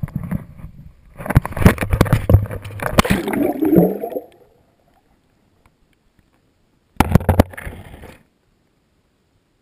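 A camera on a rope rattling and knocking as it is thrown, then plunging into lake water with a gurgle of bubbles as it sinks. After a couple of seconds of near silence underwater, a short burst of knocks and rubbing.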